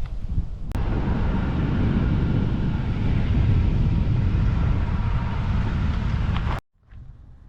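Vehicle driving, a steady rumble of road and engine noise with hiss. It starts abruptly about a second in and cuts off sharply near the end, leaving a much quieter background.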